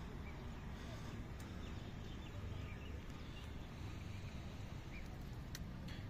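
Low steady outdoor rumble with faint, scattered short bird chirps and two light clicks.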